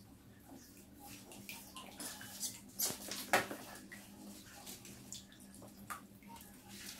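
Rats swimming in shallow water crowded with floating plastic balls, making irregular small splashes and sloshes, the loudest a little past the middle.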